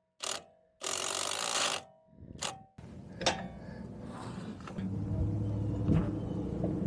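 Ratchet wrench running in a shock absorber mounting bolt: three short bursts in the first two and a half seconds, then a longer, steadier stretch of mechanical clicking.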